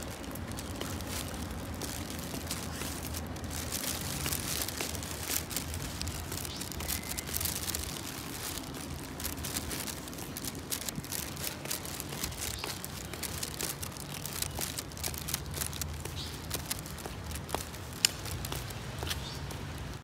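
Rustling and crackling of someone moving on foot through dry brush, with many small twig and leaf snaps and one sharper click near the end.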